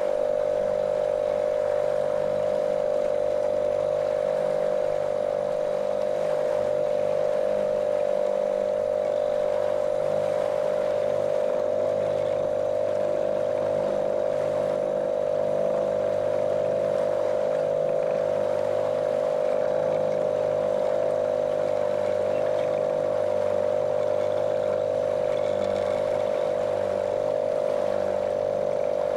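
Small motorboat's outboard motor running at a steady cruising speed, a constant monotonous drone with water rushing along the hull.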